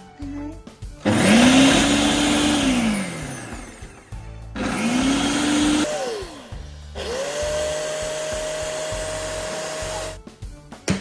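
Electric blender blending strawberries, milk and vanilla ice cream into a milkshake, in three runs of a few seconds each. The motor spins up, holds and winds down each time, and its pitch is higher in the last run.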